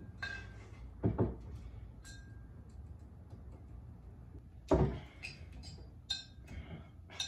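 Corkscrew being worked into the cork of a wine bottle: scattered small clicks, scrapes and glass clinks, with a louder knock about five seconds in.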